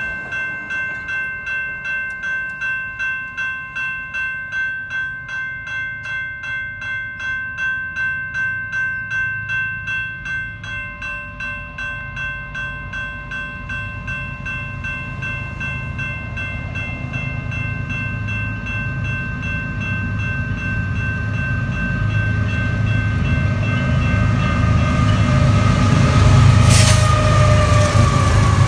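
Railroad crossing warning bell ringing in steady, even strokes while the gates are down. A diesel freight train then approaches and passes, its low rumble growing louder until it covers the bell.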